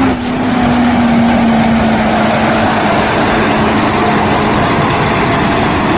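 Diesel engine of a National Crane boom truck running as the truck drives past, loud and steady, with a low engine hum that dips slightly in pitch and fades out about four and a half seconds in.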